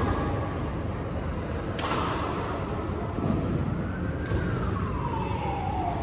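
Two sharp badminton racket-on-shuttlecock hits echoing in a sports hall, about two seconds in and just after four seconds, over the hall's noise. A siren wails slowly, rising in pitch and then falling.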